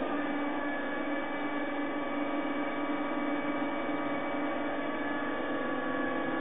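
Piko G-scale V100 (BR 112) model locomotive running, its electric motor and gears making a steady whine of several tones.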